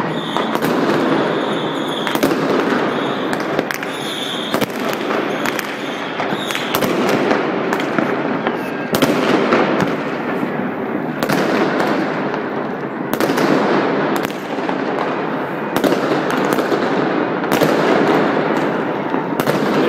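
Many fireworks going off across a city at once: a continuous din of rockets, crackling and bangs, with sharper, louder reports every second or so at irregular intervals.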